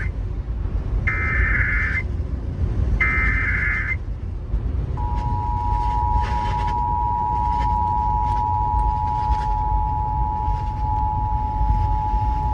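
Emergency Alert System broadcast over FM radio. Two short raspy SAME header data bursts of about a second each come first. About five seconds in, the EAS two-tone attention signal starts, a steady dual tone of 853 and 960 Hz held to the end.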